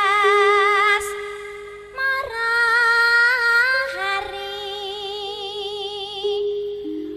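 Javanese langgam/campursari song: a woman's voice holding long notes with a wide, even vibrato, in short phrases over a steady instrumental accompaniment.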